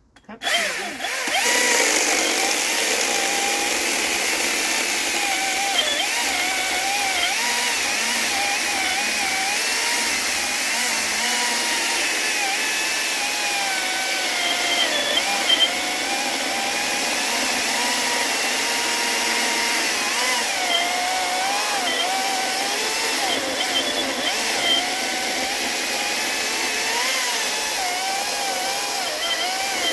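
Echo 2500T 56-volt battery top-handle chainsaw starting up about half a second in and cutting dry spruce. Its electric motor and chain give a steady whine whose pitch dips and recovers again and again as the chain loads up in the wood.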